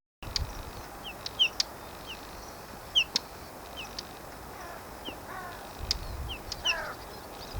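Small birds calling repeatedly: short, thin, downward-sliding whistles about once or twice a second, mixed with sharp clicking calls, and a few lower chirping notes a little past halfway. A faint low rumble of wind lies underneath.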